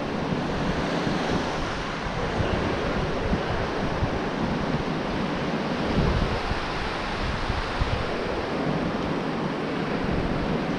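Steady rush of sea surf on the shore, mixed with wind buffeting the microphone as a flickering low rumble.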